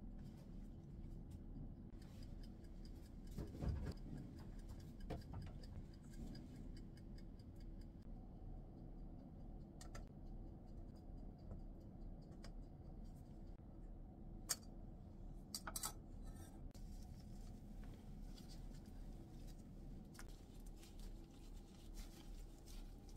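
Quiet kitchen handling sounds over a low steady hum: a soft knock a few seconds in and a few sharp clicks later as a plastic food container, cut cucumbers and a stainless strainer are handled.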